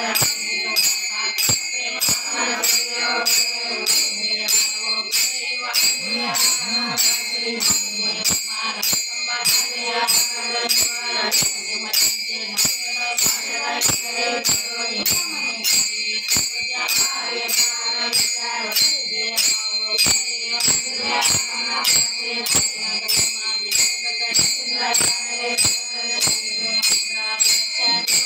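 Marathi bhajan music: small hand cymbals (taal) struck in a steady beat, about two strikes a second, each ringing on, with a tune running underneath.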